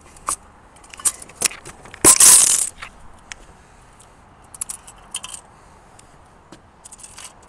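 A shot-up aluminium drink can, cut nearly in half, being picked up and handled: scattered light clicks and metallic crinkles, with one louder crinkling rustle about two seconds in that lasts under a second.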